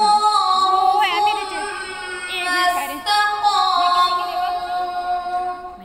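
A woman's voice chanting Quran recitation (tilawat) in the melodic style, holding long notes and turning them with quick ornamental trills, with a short breath about three seconds in.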